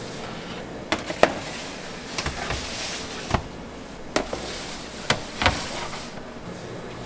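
Metal sheet trays holding aluminium chiffon tube pans clanking and scraping as they are slid onto the floor of a deck oven: several sharp metallic knocks, with sliding scrapes between them.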